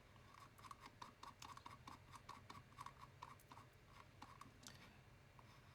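Faint, quick clicking of a computer mouse, about five clicks a second, stopping about four and a half seconds in.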